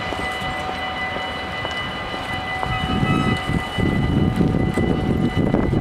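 Dutch level-crossing bells ringing steadily as the crossing clears, with a low rumble that swells about halfway through.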